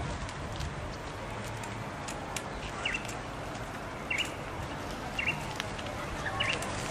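A bird giving four short chirps, about one a second, over steady outdoor background noise.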